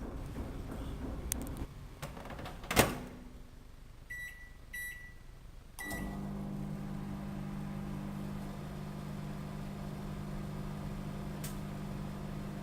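Microwave oven door shut with a sharp clack, followed by two keypad beeps and a third as the oven starts. The oven then runs with a steady low hum.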